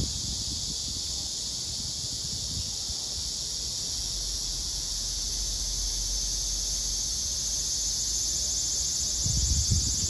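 Cicadas singing in chorus: a high, continuous buzz that swells steadily louder and takes on a fast pulsing near the end.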